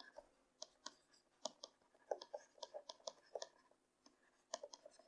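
Faint, irregular clicks and taps of a stylus writing on a pen tablet, with a short pause near the end.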